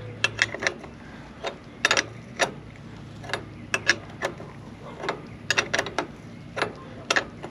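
Ratchet wrench clicking in short irregular runs as it tightens the nut on a tractor starter solenoid's battery-cable terminal.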